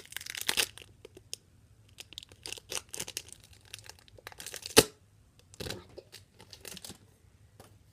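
Foil wrapper of a trading-card pack being torn open and crinkled by hand, in irregular crackling bursts, with one sharp, loud rip about five seconds in.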